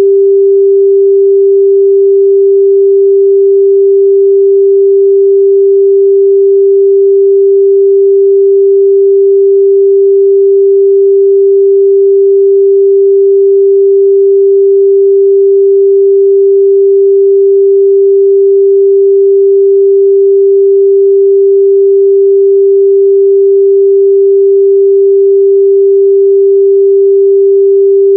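A steady, loud 394 Hz sine-wave test tone, one pure pitch held without change.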